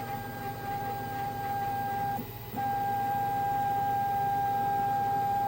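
3D printer stepper motors whining at one steady pitch during a long move. The whine breaks off briefly about two seconds in, then resumes louder and stops abruptly near the end. A steady low hum runs underneath.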